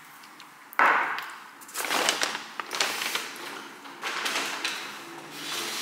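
Paper grocery bag rustling and crinkling as groceries are pulled out of it, in several bursts, the first and sharpest about a second in.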